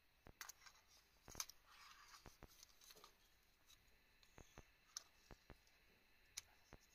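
Faint plastic clicks and taps from a GoPro Hero 7 Black and its black plastic mounting frame being handled and the camera fitted into the frame: a busy run of clicks in the first few seconds, then occasional single clicks.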